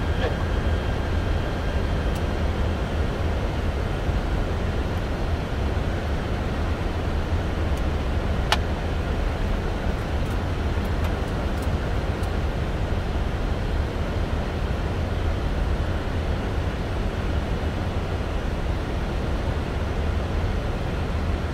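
Steady flight-deck noise of a Boeing 747-400 on approach: a constant low rumble of airflow and engines. A faint high tone stops about two seconds in, and there is one sharp click about eight and a half seconds in.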